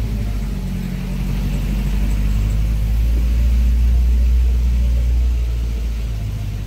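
Car driving slowly, heard from inside the cabin: a steady low engine and road rumble that grows louder toward the middle and eases off near the end.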